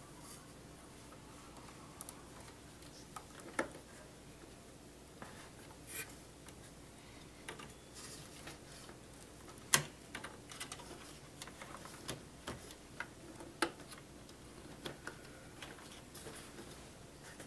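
Irregular light clicks and taps of hands handling computer parts and cables during a desktop PC build, with one sharper click about ten seconds in.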